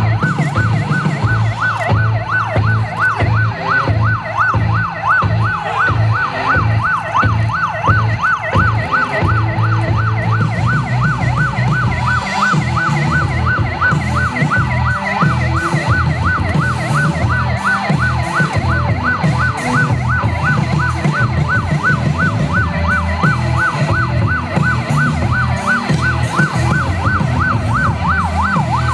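Police car electronic siren in a fast yelp, its pitch sweeping rapidly up and down at about three cycles a second without a break.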